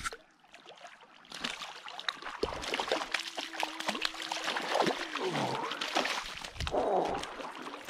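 A hooked brook trout thrashing at the surface of shallow river water as it is scooped into a landing net, with repeated splashing and slapping.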